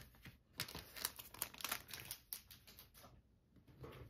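Light crinkling and rustling of a clear plastic wrapper and a cardboard album handled by hand, a string of short rustles that thins out about three seconds in.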